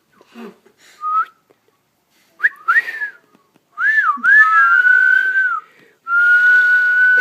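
A person whistling: a short note, then quick up-and-down swoops, then a long steady held note near the end.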